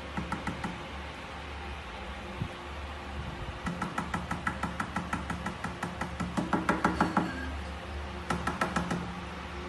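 A rapid run of light taps or knocks, about five a second, coming in three spells: briefly at the start, a long run through the middle and a short one near the end, over a steady low hum.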